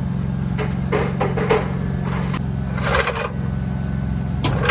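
An engine running steadily at a constant low hum, with a few short scrapes and knocks of metal and gravel work over it.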